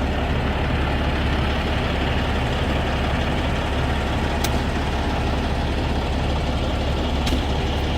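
Freightliner Classic semi truck's diesel engine running, a steady low drone, with two short clicks partway through.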